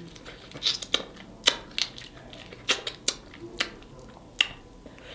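Snow crab leg shells being cracked and snapped open, a string of about eight sharp, irregular cracks.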